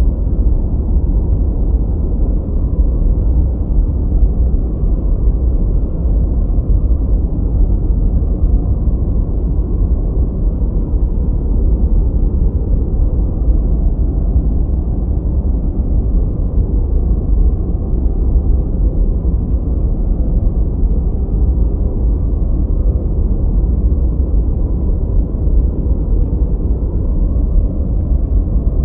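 Continuous steady noise track sold as white noise for studying, weighted toward the low end: a deep, even hiss with no high frequencies and no changes.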